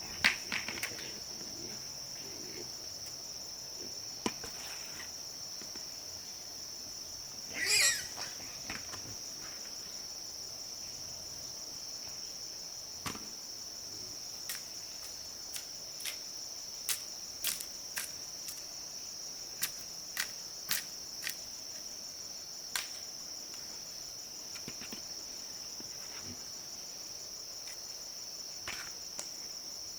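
Steady high-pitched insect chorus of crickets. Scattered sharp clicks and knocks sound over it, with a brief louder rustling burst about eight seconds in.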